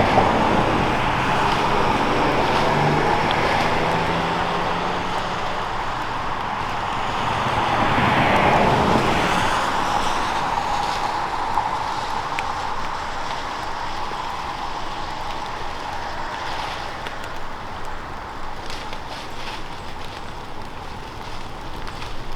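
Road traffic: vehicles driving past on a road, one going by loudest about eight seconds in, then the noise slowly fades.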